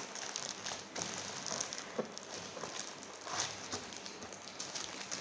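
Cardboard parcel being handled and opened, with plastic-wrapped picture frames slid out: scattered rustling and crinkling with a few short scrapes and taps.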